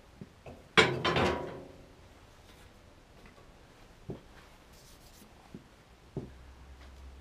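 A single metal clank about a second in that rings briefly as it dies away, followed by a few faint knocks: hand tools being handled while pistons are fitted into an engine block.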